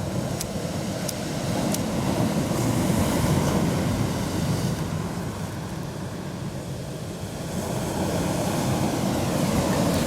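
Sea waves breaking and washing up the shore, surging about two seconds in and again near the end.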